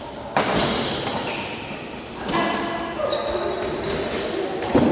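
Badminton rally: a few sharp racket hits on the shuttlecock and players' footsteps on the court, each hit followed by a short echo.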